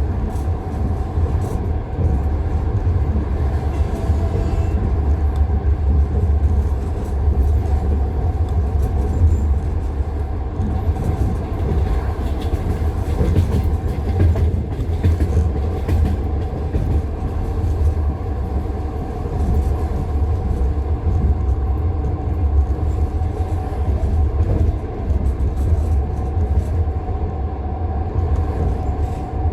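Passenger train's wheels clattering over the rail joints of jointed (non-welded) track, heard from inside a carriage: repeated clicks over a steady low rumble.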